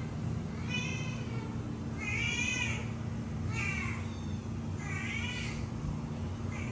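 Kitten meowing: four high-pitched meows about a second and a half apart, each rising then falling in pitch, with another starting at the very end.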